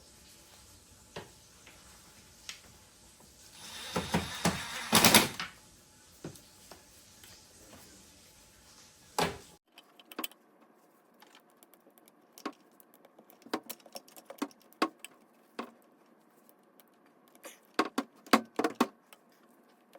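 Scattered metallic clicks and knocks of hand tools working on car parts, with a louder rattling cluster about four to five seconds in.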